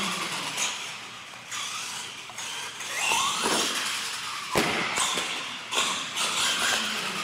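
Electric R/C monster truck's motor and gears whining, rising and falling in pitch as it speeds up and slows. A sharp bang comes a little past halfway, as it lands off a ramp, and another knock follows about a second later.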